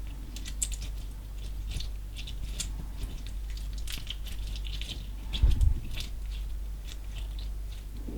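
Slime mixed with small coloured particles being squished and kneaded by hand, giving a run of small crackles and clicks. A louder dull thump comes about five and a half seconds in.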